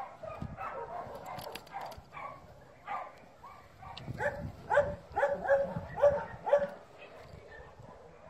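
A dog giving short, high yips and barks: softer calls at first, then a loud quick run of about six, one every half second or so, in the second half.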